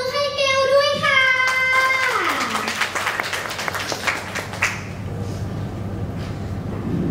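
A young voice holds one long drawn-out call at a steady pitch, sliding down at the end about two seconds in. An audience claps over the end of it for a few seconds and the clapping fades out.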